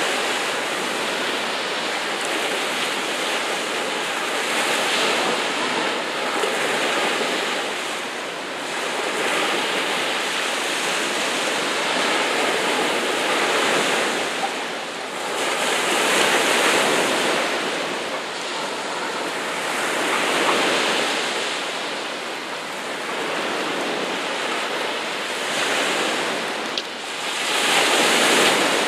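Choppy sea waves washing and splashing, swelling louder and easing every few seconds, with wind.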